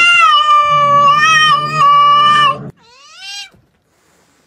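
Domestic cat yowling at another cat: one long, drawn-out yowl at a steady pitch that cuts off about two and a half seconds in, followed half a second later by a shorter rising-and-falling call.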